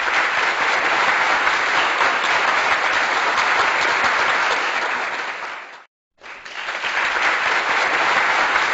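Audience applause, a dense steady clatter of many hands clapping, that fades out just before six seconds in, stops for a moment, then swells back in.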